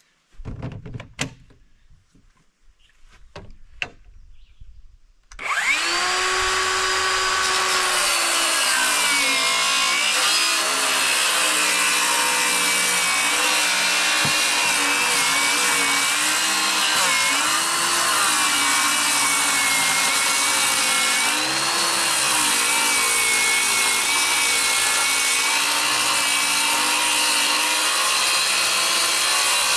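A few knocks and clicks, then about five seconds in a DeWalt circular saw starts and cuts a long rip through a plywood sheet along a straightedge guide. The motor's pitch dips and recovers as the load changes.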